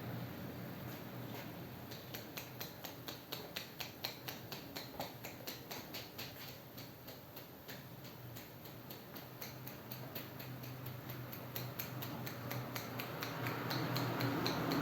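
Fingertips tapping rapidly on the scalp in a head massage, light even taps about four or five a second, fading out after about ten seconds, over a steady low hum.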